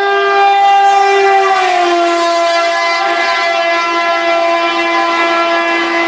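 Train horn sounding one long, loud blast, its pitch dropping slightly about one and a half seconds in and then holding steady.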